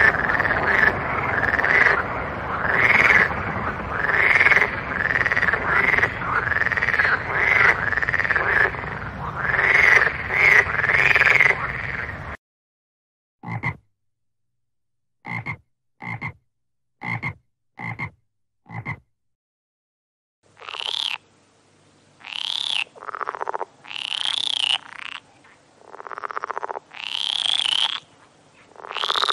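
Frogs croaking. For about the first twelve seconds a dense chorus of overlapping calls repeats several times a second. It cuts off suddenly to silence, broken by six short single croaks about a second apart. From about twenty seconds in comes a run of longer, higher-pitched calls with short pauses between them.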